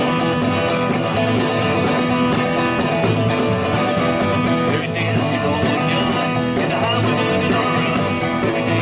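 Country-style band music led by guitar, playing steadily.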